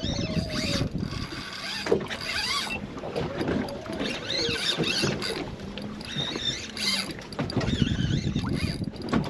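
Penn Battle III spinning reel being cranked steadily against a hooked fish on a hard-bent boat rod, its gears whirring and clattering. Boat noise and wind on the microphone sit underneath.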